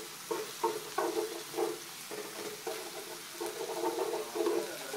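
Wooden chopsticks stirring and scraping yakisoba noodles, pork and bean sprouts in a hot electric skillet as they fry, with irregular short scraping strokes several times a second.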